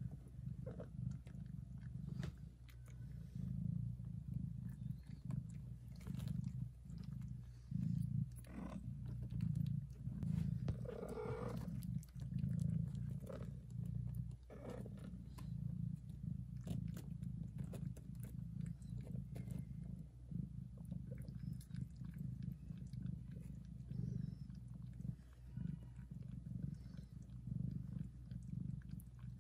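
Mother cat purring very loudly and steadily while licking her newborn kittens, with small wet licking clicks. A brief mew rises and falls about eleven seconds in.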